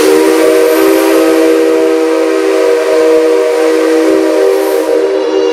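Whistle of the C57 135 steam locomotive giving one long steady blast, a chord of several notes held for about five seconds and stopping near the end. It is blown with compressed air instead of steam, which gives it a dry sound.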